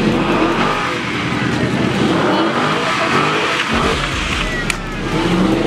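Dodge Charger engine revving hard, its pitch rising and falling repeatedly, over a steady noise of tyres and exhaust.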